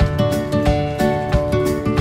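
Background music: an acoustic guitar strummed in a steady rhythm, about three strums a second.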